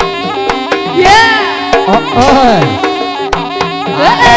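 Live Javanese folk-dance music of the gamelan kind: quick, dense drum strokes over steady sustained tones, with a high, wavering melody that slides up and down in pitch about a second in, again around two seconds in, and once more near the end.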